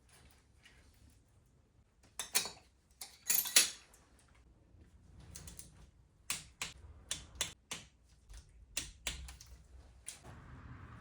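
Irregular sharp metallic clicks and clatter of hand tools and parts being handled in a workshop, loudest about two to four seconds in, then a quicker run of lighter clicks.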